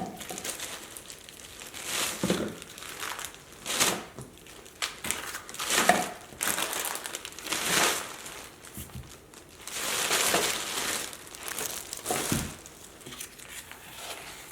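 Plastic food packaging crinkling as meal-kit ingredient packs are handled, in a series of separate bursts about every two seconds.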